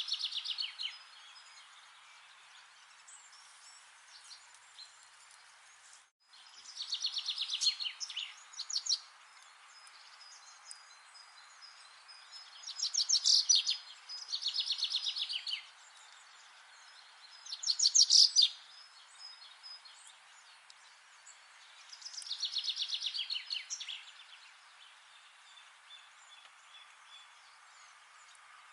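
A songbird singing in repeated fast trills, each phrase lasting a second or two and coming every few seconds, over a steady background hiss. The sound drops out briefly about six seconds in.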